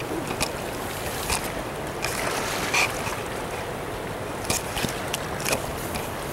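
Fraser River rapids rushing steadily, with several short clicks and knocks scattered through.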